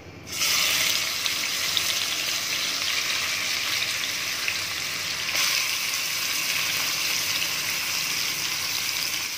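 Yogurt-marinated chicken pieces sizzling as they go into a little hot oil in the pan. The sizzle starts suddenly just after the start, holds steady, and rises again about halfway through as more pieces are added.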